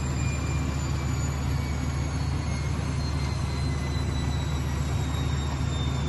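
A steady low rumble with a hiss over it, unchanging, from a gas stove burner heating a pot of boiling instant noodles.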